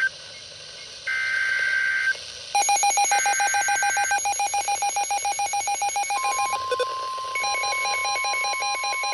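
Emergency Alert System digital header bursts: two roughly one-second blasts of buzzing two-pitch data tones. From about two and a half seconds a rapid electronic alarm beeping comes in. Around six seconds a steady single-pitch attention tone starts under it.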